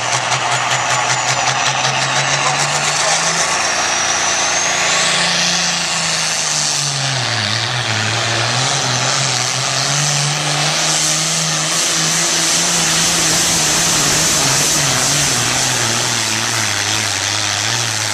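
Open-class pulling tractor's engine at full throttle hauling a weight-transfer sled down the track: a loud, steady engine drone with a high whine rising about four seconds in. The engine pitch dips around seven seconds in, then climbs back and holds.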